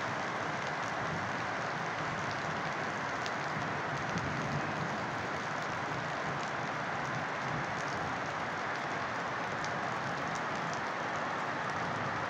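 Steady rain falling: an even hiss with scattered single drop ticks.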